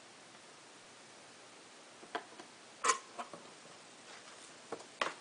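Cardboard packaging being handled: a few short knocks and rustles as the box flaps and inner cardboard of a camera box are moved, the loudest about three seconds in, after a near-quiet start with faint hiss.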